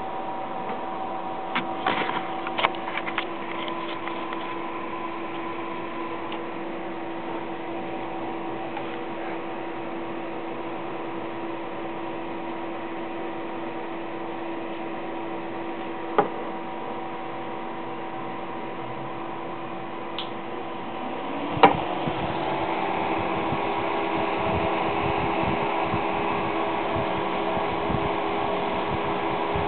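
Three electric fans running with a steady hum. There are a few light clicks near the start, then a sharp click about 22 seconds in, after which the hum steps slightly higher in pitch and gets louder.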